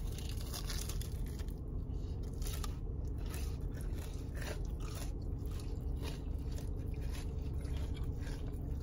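Biting into and chewing a Korean hot dog coated in fried potato cubes and hot Cheeto crumbs: irregular short crunches and mouth noises over a steady low hum.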